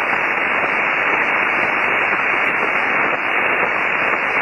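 Steady hiss of band noise from an HF amateur radio transceiver's speaker on the 20-metre band, with no clear signal coming through. The hiss is muffled, with nothing above about 3 kHz, as heard through a single-sideband receiver's filter.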